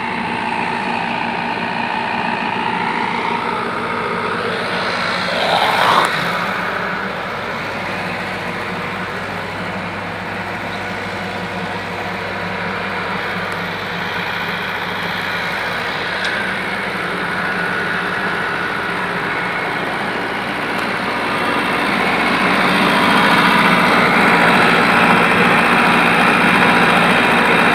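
Excavator's diesel engine running steadily, with a brief rising whine about six seconds in, then louder near the end.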